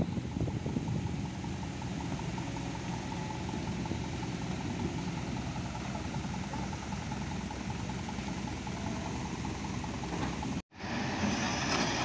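Heavy diesel engine running steadily. The sound cuts out for an instant near the end, then comes back louder.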